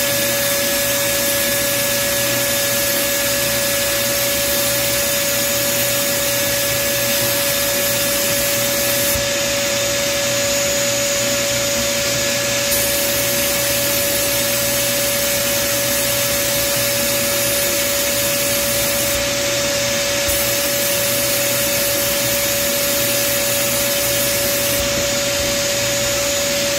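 Sandblasting cabinet's air blast gun hissing steadily as it frosts a mirror's glass through a stencil, with a steady high whine alongside. The highest part of the hiss thins out briefly three times, about ten seconds in, near twenty seconds and near the end.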